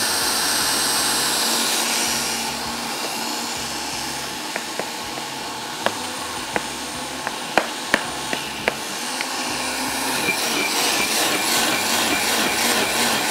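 Countertop blender running, grinding garlic, green chillies, coriander and water into a chutney. The motor noise is steady and dips a little after about two seconds. A run of sharp clicks comes in the middle, and the noise grows louder again over the last few seconds.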